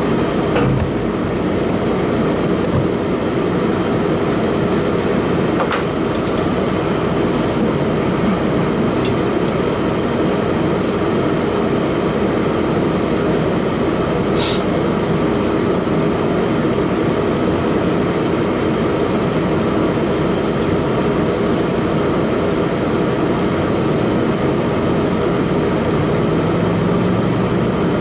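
Loud, steady drone of running machinery with a constant hum, and a few faint clicks as the compressor's wiring is handled.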